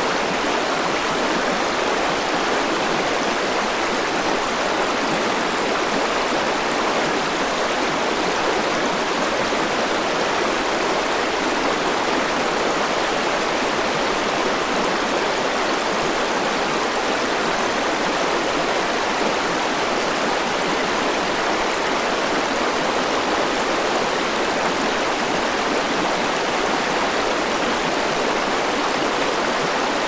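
Shallow rocky mountain stream tumbling over small cascades between boulders: a steady, unbroken rush of water.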